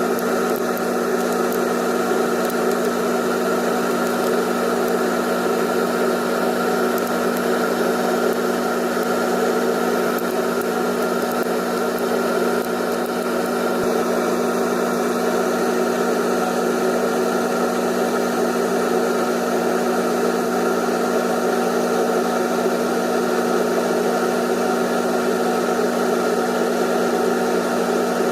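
Electric motor running with a steady, unchanging hum.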